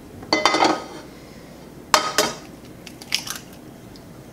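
An egg cracked on the edge of a non-stick frying pan: a sharp crack about two seconds in, after a short metallic clatter of the pan near the start, then a few light knocks.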